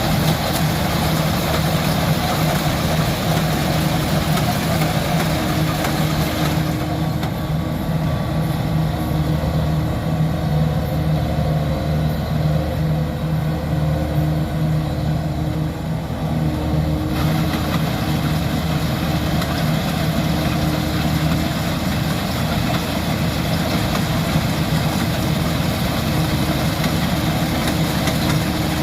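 Rice combine harvester's engine running steadily under load. Its higher hiss dies down for about ten seconds partway through, then comes back.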